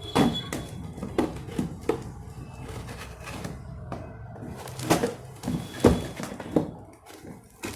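A cardboard box being cut open and unpacked: scattered knocks, scrapes and rustles, with the sharpest knocks about five and six seconds in, over background music.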